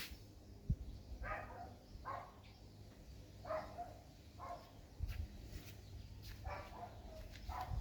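A dog barking: six short barks in three pairs a couple of seconds apart. There is a sharp knock just before the first bark.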